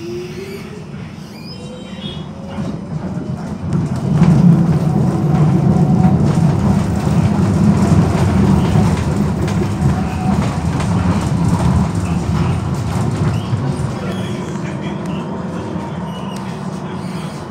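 Amsterdam GVB tram running on its rails, heard from inside the car. Its electric drive whines upward in pitch as it pulls away, then the wheels rumble and clatter over the track, loudest a few seconds in, easing off toward the end as it slows.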